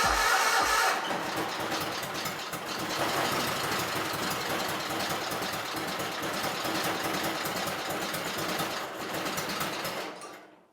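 Kohler KT17 Series 2 twin-cylinder engine of a John Deere 317 garden tractor firing on its first start after a rebuild, running unevenly for about ten seconds and then stopping suddenly: a half start.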